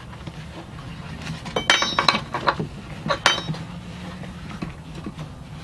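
Metal harness mounting hardware clinking as the anchor plate and strap fittings are handled and set on the car's floor: a cluster of sharp clinks with brief ringing about one and a half to two seconds in, and another clink about three seconds in.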